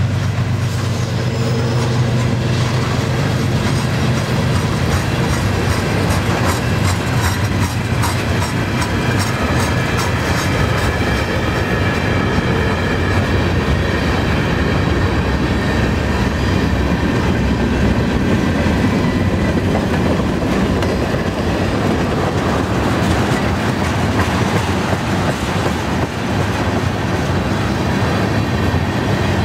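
CN freight cars (tank cars, gondolas and covered hoppers) rolling steadily past, wheels clacking over the rail joints, with a faint wheel squeal through the middle. A low drone fades out in the first couple of seconds.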